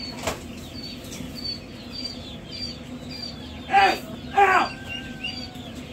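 Young poultry chicks peeping in brooder cages: short high peeps repeating two or three times a second, with two louder calls about four seconds in.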